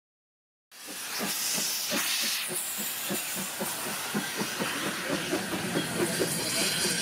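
Rhaetian Railway G 4/5 steam locomotive 108 moving off slowly with steam blowing from the cylinder drain cocks: a loud, steady hiss of escaping steam over a regular beat of chuffs about three a second. The sound starts abruptly about a second in.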